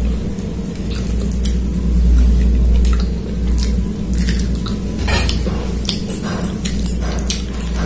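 Close-up eating sounds of chicken curry and rice eaten by hand: fingers squishing and mixing the food on the plate, then wet chewing with many small clicks, thickest in the second half, over a steady low hum.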